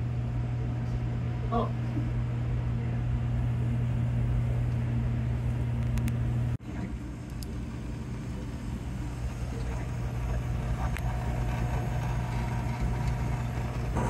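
Steady low mechanical hum of running equipment. It cuts out briefly about six and a half seconds in and then resumes.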